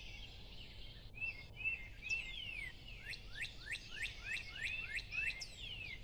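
Northern cardinal singing: short whistled phrases repeated in threes, then a fast run of steeply down-slurred whistles, about four a second, through the middle.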